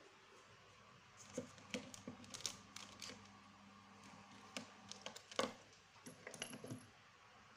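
Small clicks, taps and light knocks of pens and a plastic tube being moved about in a desk pen pot, scattered and irregular, starting about a second in, with the loudest knock about five seconds in.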